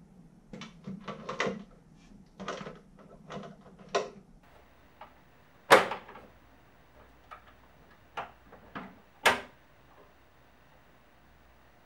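Wooden knocks and clunks from a small wooden wall cabinet being hung and its door fitted and closed. A run of light knocks comes in the first few seconds, then two sharp, loud knocks, one about halfway through and one about three-quarters of the way through.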